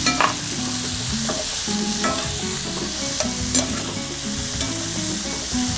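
Shrimp, garlic and chopped onions sizzling steadily in hot oil in an enamelled pan, stirred with a metal spoon that scrapes and clicks against the pan several times.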